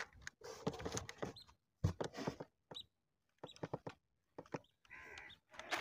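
Faint, scattered squeaks and scuffs of a styrofoam box as a person grips its rim and climbs into it, with a brief soft rustle near the end.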